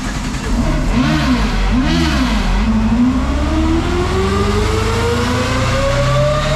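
Supercharged VW 2.0-litre eight-valve four-cylinder engine revving: two quick throttle blips, then a long steady climb in revs under load, as in a dyno pull.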